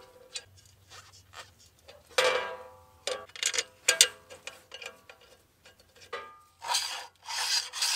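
Steel parts of a McLeod RXT dual-disc clutch being handled and fitted on the flywheel: scattered metal clicks and taps, a short ringing clink about two seconds in, and scraping near the end.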